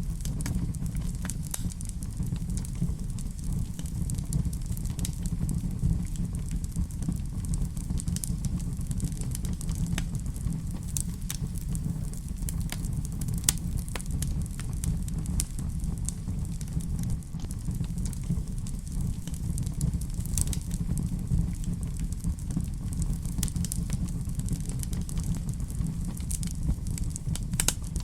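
Fireplace fire crackling, with scattered sharp pops and snaps over a steady low rumble.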